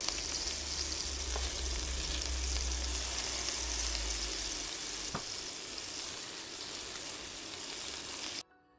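Pork meatballs sizzling as they shallow-fry in hot oil in a nonstick frying pan: a steady, dense crackling hiss with a couple of faint clicks, cutting off suddenly near the end.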